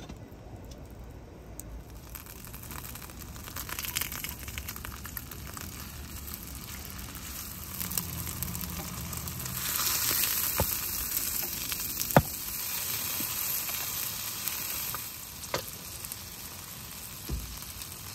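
A beef steak with onion and leek pieces sizzling as it fries in a cast-iron skillet over a gas camp stove; the sizzle swells about ten seconds in. A few sharp clicks of metal tongs on the pan, the loudest about twelve seconds in.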